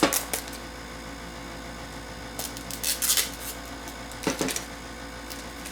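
Packaging being torn open along its zip-strip, giving short rasping tears and crinkles of cardboard and plastic: a cluster about two and a half to three seconds in and another about a second later.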